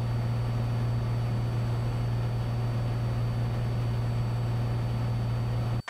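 Cessna 182 Skylane's piston engine and propeller in cruise: a steady low drone mixed with the rush of air over the airframe. It cuts off abruptly just before the end.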